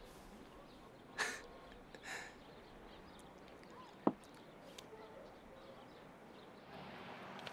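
Quiet room with a couple of soft rustles, then one sharp clink about four seconds in as a drinking glass is handled on a table.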